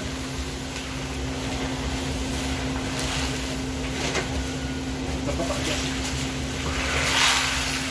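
Rose crackers frying in a large wok of hot oil: a steady hiss over a constant low machine hum, with occasional scrapes and knocks as a wooden paddle and a wire skimmer stir the crackers and scoop them out. A louder rush of hiss comes about seven seconds in.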